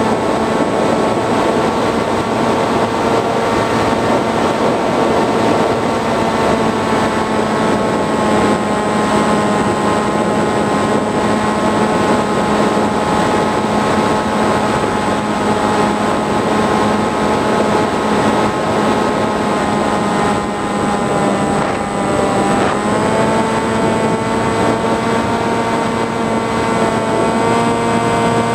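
Motor and propeller of an FPV model flying wing, heard from the camera on board: a steady whine over a rush of airflow. About three-quarters of the way through the pitch dips briefly, then climbs back a little higher.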